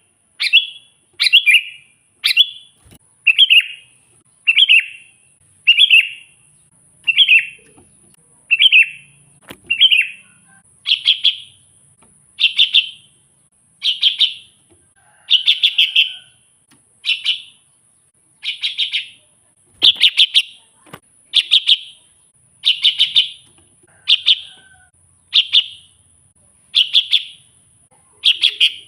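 Sooty-headed bulbul (kutilang) singing, repeating a short chirping phrase about every one and a half seconds, with a faint steady high-pitched tone underneath.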